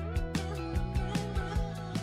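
Instrumental background music with a quick, steady beat.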